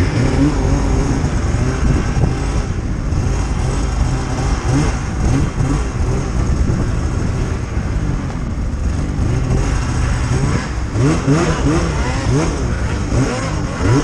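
Two-stroke mountain snowmobile engine under load in deep powder, its pitch rising and falling with repeated throttle blips, which come quicker near the end.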